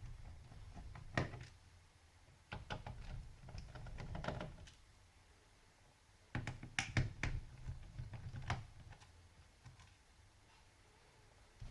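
Clicks and light knocks of a screwdriver, screws and the laptop's plastic case being handled during disassembly. They come in a few short bursts, the densest a little past the middle.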